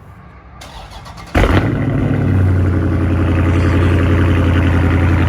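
Cold start of a car engine: a brief crank, then the engine fires a little over a second in with a loud flare and settles into a steady, loud idle through an exhaust with the mid-mufflers deleted.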